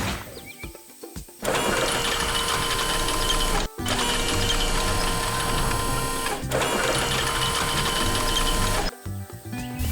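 Cartoon soundtrack music mixed with a busy, rapid mechanical rattle. It plays in three blocks of about two and a half seconds that start and stop abruptly, with quieter stretches at the start and near the end.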